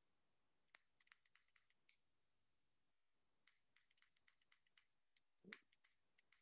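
Faint clicking of a long-nosed utility lighter, clicked several times in two quick runs while it is held to an Advent candle's wick, as tries to get a flame. One short, fuller sound comes near the end.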